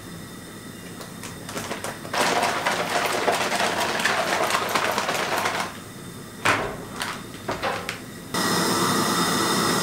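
Freeze-dried meal pouch crinkling and rustling for a few seconds as its zip seal is pressed shut, then a few short crackles. A steady hiss starts abruptly near the end.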